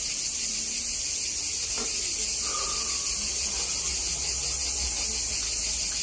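Steady, high-pitched chorus of crickets without a break, with a faint tap about two seconds in.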